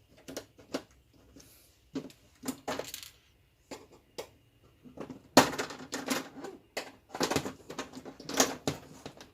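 Irregular clicks, taps and rattles of the LED TV panel's frame being unclipped and pried off, busiest in the second half.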